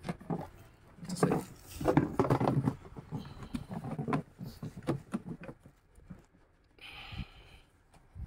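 Hands handling a plastic ice-box cooler and fitting its lid: a series of light taps and knocks on hollow plastic, with a short scraping rustle about seven seconds in.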